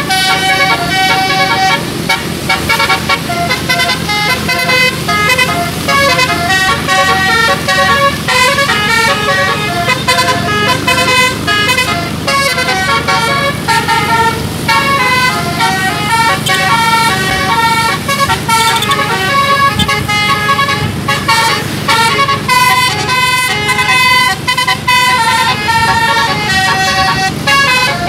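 Bus telolet musical air horn playing a quick tune of stepped notes in a continuous run, over a steady low hum.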